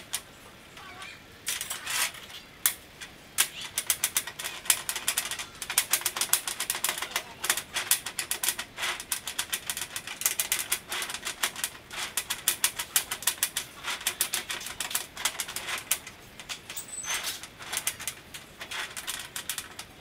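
Steel hex bolts and nuts clicking and clinking rapidly as hands work a star-shaped assembly of bolts set around a welded ring of nuts. The irregular clicks come in several runs, starting about a second and a half in.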